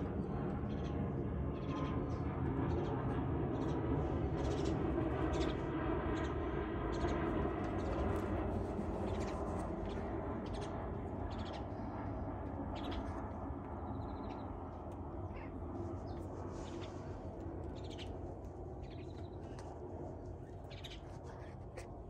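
Wild birds calling outside in many short, scattered chirps and calls, over a steady low rumble that slowly fades.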